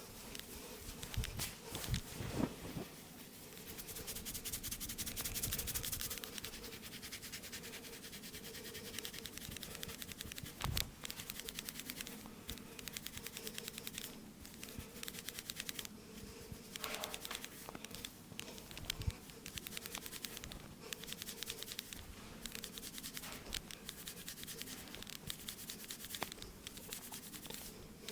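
Hands massaging a head: a fast, steady run of tapping and scratching of fingers on the scalp and hair, with a few louder single knocks.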